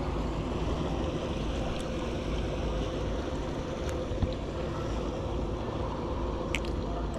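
Steady drone of a boat's outboard motor with wind on the microphone. A few faint clicks are heard while a small sheepshead is unhooked.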